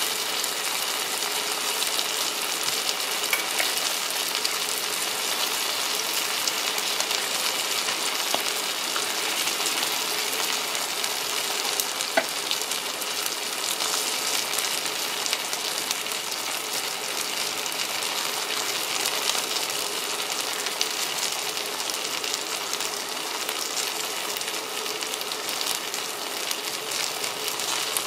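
T-bone steak and gravy sizzling in a hot cast-iron skillet: a steady sizzle with scattered small pops and crackles.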